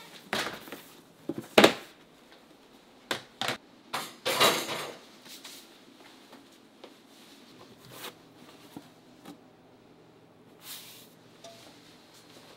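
Kitchen work: a series of knocks and clatters, the sharpest about a second and a half in, with a longer noisy burst about four and a half seconds in and a steady low hum underneath.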